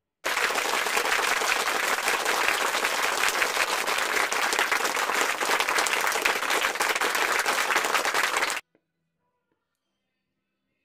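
Applause: many hands clapping steadily at an even level, starting abruptly and cutting off sharply after about eight seconds, like an added applause sound clip.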